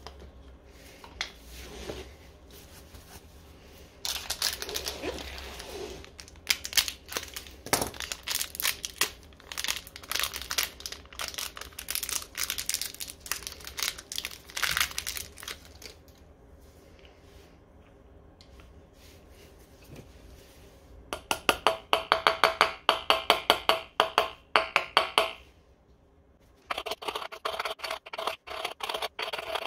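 A plastic bearing packet crinkles and tears as it is opened. Later come quick, even hammer taps, about four a second, with a slight metallic ring, seating a new bearing in the Xiaomi M365 scooter's rear wheel hub.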